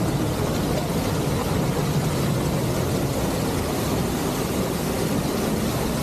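Loud, steady rush of a waterfall pouring down into churning white water.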